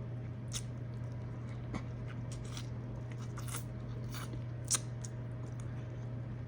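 Close-up chewing and wet mouth smacking as someone eats, a scattering of sharp mouth clicks with the loudest about three-quarters of the way through, over a steady low hum.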